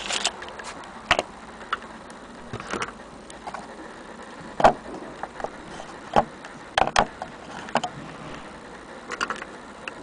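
Irregular clicks and knocks of a white plastic digital kitchen scale being handled, its buttons pressed and its body knocked against a wooden tabletop, the loudest knock a little under halfway.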